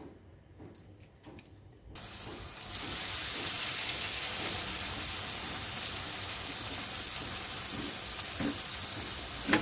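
Flour-breaded chicken fillets frying in hot oil in a frying pan. The sizzle starts suddenly about two seconds in as the first pieces go into the oil, then runs on as a steady hiss.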